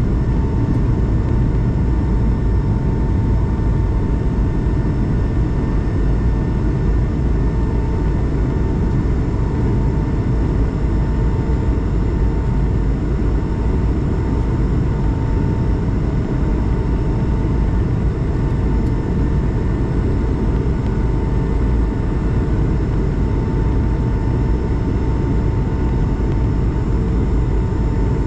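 Steady in-flight cabin noise of an Airbus A220-300 airliner: a constant rush of airflow and engine noise with a heavy low rumble and a thin steady tone over it.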